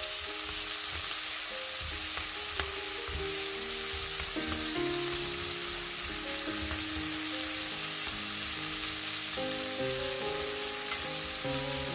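Squid sizzling steadily as it cooks in a frying pan, with soft background music.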